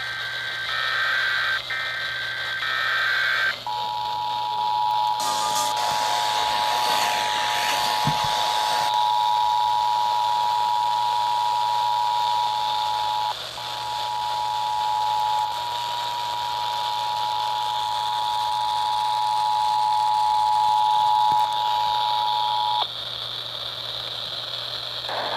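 Emergency Alert System test heard over a hissy radio signal. The last few seconds of the SAME header's digital data bursts play first. About three and a half seconds in, the two-tone EAS attention signal (853 and 960 Hz together) starts and holds steady for about nineteen seconds, then cuts off, leaving only static.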